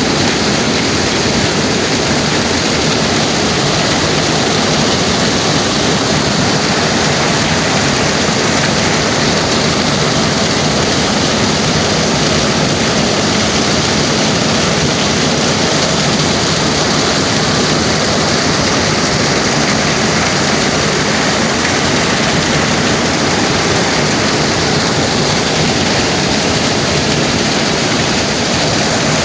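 Heavy rain falling, a loud steady hiss with no let-up.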